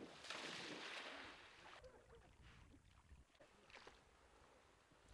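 Faint water splashing as retriever dogs plunge into the pond on a retrieve: a hiss of splashing for about a second near the start, then a few faint clicks.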